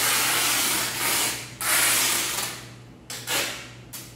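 Packing tape pulled off the roll of a hand tape dispenser in long rasping strips, each lasting about a second, and then a few short tugs near the end as it is pressed along a window frame.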